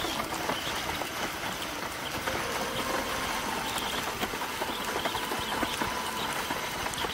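Strong wind buffeting an action camera's microphone, with a speed windsurf board (Fanatic Falcon 89) slapping and chattering over chop at speed, many quick irregular knocks under a steady rush of wind and spray.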